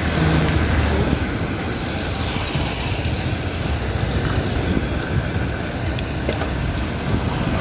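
Wind rushing over the microphone of a moving bicycle, mixed with the steady noise of nearby motorbike and car traffic.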